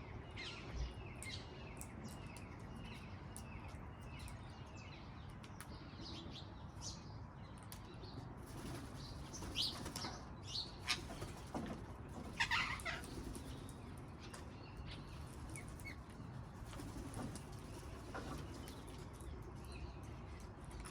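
Wild parrots calling: a run of short high chirps over the first few seconds, then several louder, harsher calls in the middle, over a steady low rustle.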